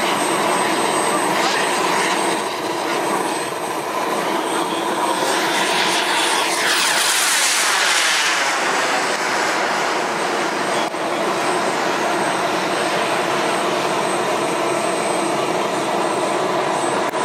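Jets Munt Merlin M90 model gas-turbine engine of a 1/7th-scale RC F-16 running in flight: a steady jet rush with a thin whine. The hiss swells and sweeps about six to eight seconds in as the jet pulls up close by, then settles again.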